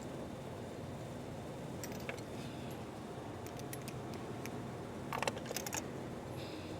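Light metallic clicks and clinks of a spark plug socket and extension as a new spark plug is turned in by hand, with a short cluster of louder clinks about five seconds in, over a steady background hum.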